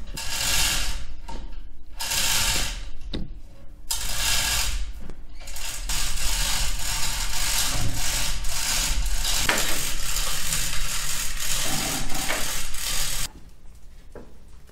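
A ratcheting mechanism working in three short spurts of about a second each, then running without a break for several seconds before stopping abruptly near the end.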